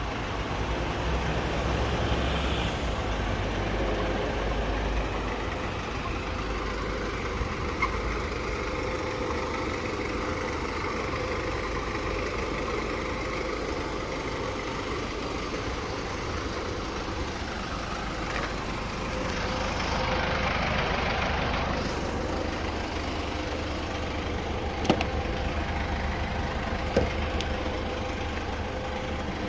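Mercedes Sprinter 316 CDI van's common-rail diesel engine idling steadily. Two sharp clicks come a few seconds before the end.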